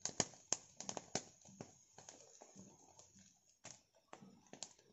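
A small wood fire crackling, with irregular sharp pops and snaps, the loudest near the start.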